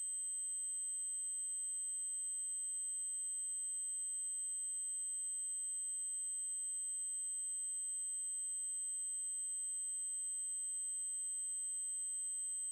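A continuous, high-pitched 8192 Hz triangle-wave test tone, held at a steady pitch and level.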